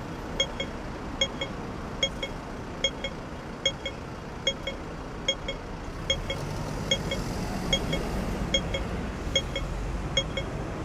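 Audible pedestrian crossing signal beeping in steady pairs of short electronic pips, a little over one pair a second, over street traffic. The traffic rumble grows louder about six seconds in.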